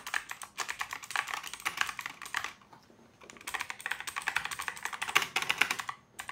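Fast typing on a Motospeed CK67 mechanical keyboard with clicky blue switches: two runs of rapid key clicks, with a short pause about two and a half seconds in.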